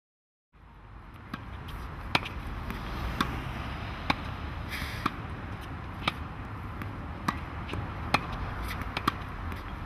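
Tennis balls being struck, a sharp knock roughly once a second, over a steady outdoor rumble that fades in about half a second in.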